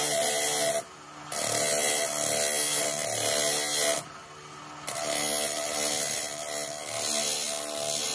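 A steel steering rack end pressed by hand against a spinning abrasive grinding disc, a loud, harsh, steady grinding rasp over the machine's whine. It drops away twice, about a second in and again about four seconds in, while the part is lifted off the disc.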